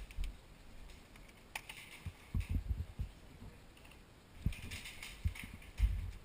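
Irregular thumps and light clicks of footsteps and gear while an airsoft player moves up, with a cluster of steps a couple of seconds in and more near the end.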